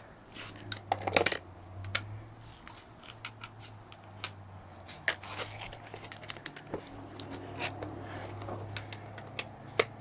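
Scattered light metallic clicks and clinks of hand tools and bolts being handled during an engine teardown, with a small cluster about a second in, over a steady low hum.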